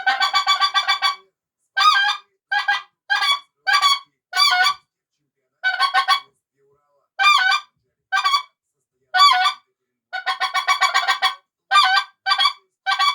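A goose call blown by mouth, imitating goose honks: a quick run of short notes, then a dozen or so single honks, each bending up and down in pitch, and another quick run about ten seconds in.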